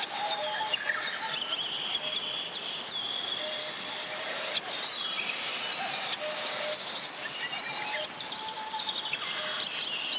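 Mountain valley stream flowing steadily, with several birds singing over it in short whistled notes and sliding calls.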